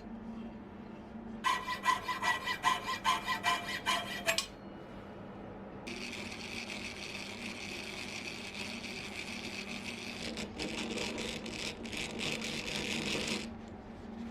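Hand filing: a file worked in quick back-and-forth strokes for about three seconds with a ringing edge to each stroke. After a short pause comes a longer, steadier run of filing strokes that stops near the end.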